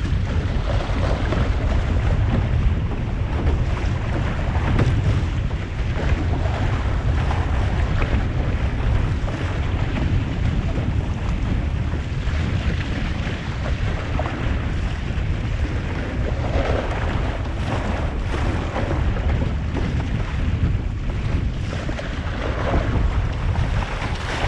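Steady wind buffeting the microphone over water rushing along the hull of a Musto Skiff sailing dinghy under way in a gusty breeze, with occasional splashes of spray.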